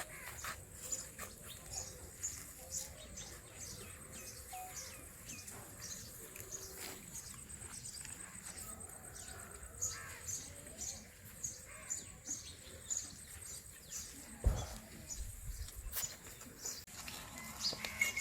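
Small birds chirping, with short high calls repeating several times a second. There is a single low thud about fourteen and a half seconds in.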